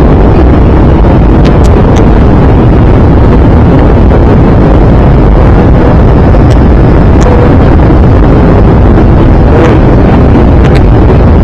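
Steady, loud roar inside the cabin of an Airbus A320-214 in flight, from its CFM56 engines and the airflow over the fuselage. A few faint ticks come through over the roar.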